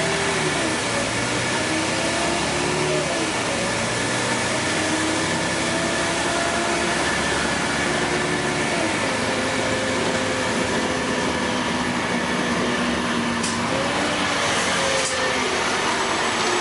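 Interior noise of a LiAZ 5292.22 city bus under way: the diesel engine and transmission whine rises and falls in pitch every few seconds as the bus speeds up and slows, over a steady rush of road noise. A few light clicks come near the end.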